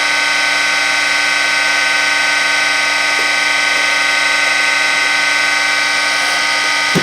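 Surface grinder running with a steady, many-toned high whine as its wheel takes a light grinding pass across a metal workpiece, just starting to cut. A brief knock comes right at the end.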